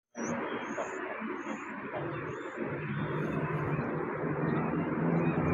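A motor running with a steady low hum over a rushing noise, growing louder from about halfway through; a few short high chirps early on.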